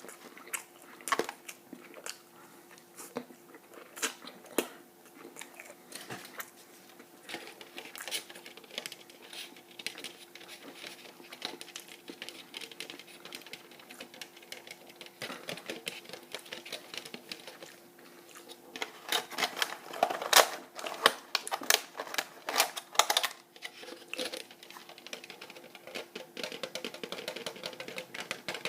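Close-miked chewing and biting of food, with many small wet clicks and crunches. There is a denser, louder run of crisp clicks about two-thirds of the way through, over a faint steady hum.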